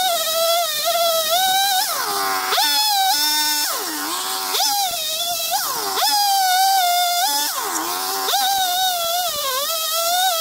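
ECHO two-stroke chainsaw running at high revs and cutting through a log. Its whine drops in pitch several times as the chain bogs down in the wood, then climbs back.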